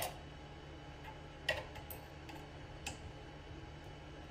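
Metal hex key working the bolts of a CNC router clamp as they are tightened: a few separate sharp ticks, about a second and a half apart.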